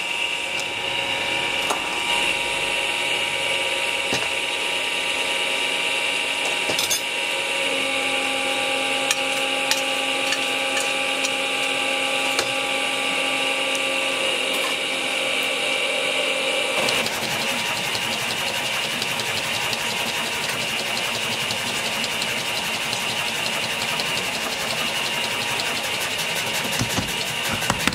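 Steady whine of workshop machine motors, changing abruptly to a rougher, broader machine noise a little past halfway. Near the end a mechanical power hammer starts striking hot steel in quick, even blows.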